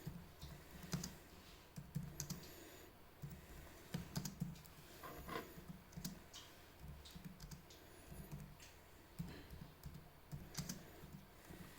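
Typing on the soft-keyed keyboard of an Acer Predator Helios 300 laptop: light, irregular key clicks with short pauses between runs of keystrokes.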